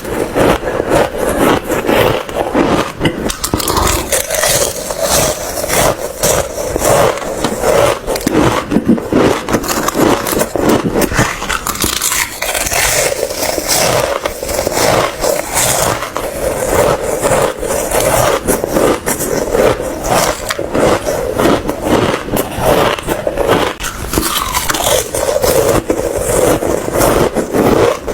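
Ice being bitten and chewed close to the microphone: a continuous run of sharp crunches, several a second, without pause.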